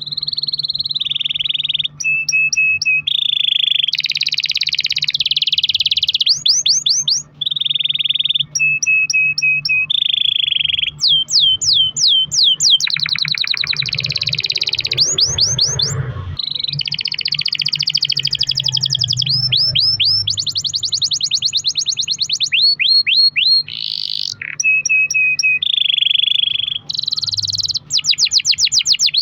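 Canary singing long rolls: phrase after phrase of very fast repeated notes, some held as level buzzing trills, others as runs of quick rising chirps, changing every second or two with only brief gaps.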